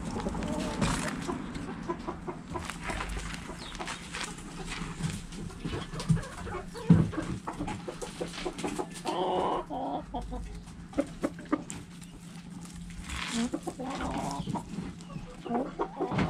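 Domestic hens clucking and calling while feeding, with many short taps and clicks between the calls and a stronger run of calls about nine seconds in.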